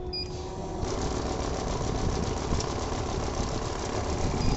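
Bundle cash counting machine running, rapidly flicking through a stack of banknotes with a fast, even whirring rhythm. It starts about a second in and stops near the end.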